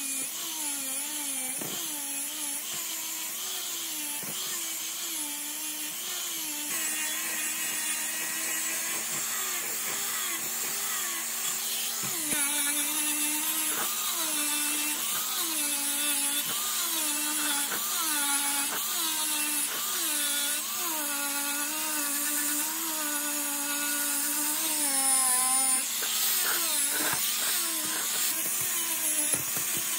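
Angle grinder with a wire cup brush scouring rust off a cast-metal electric motor end cover. Its motor whine sags and recovers over and over as the brush is pressed onto the metal and eased off.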